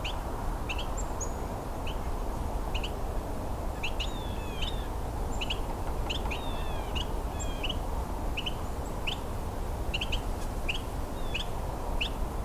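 Two Carolina wrens calling, one close and one further away, each giving a short rising call note over and over, about one to two a second.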